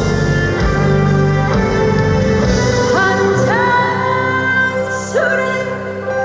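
Live band music with a singing voice. The melody slides up into long held notes about three seconds in and again near five seconds.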